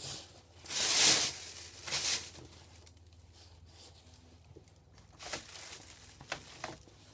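Hands handling parts of a stripped mains plug: a rustling scrape about a second in, a shorter one near two seconds, then a few light clicks.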